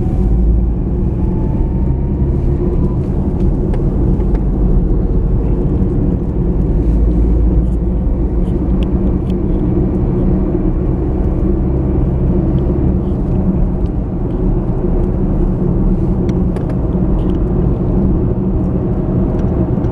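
Car driving along a road: steady engine and road rumble, with the engine note rising in pitch over the first few seconds as it speeds up.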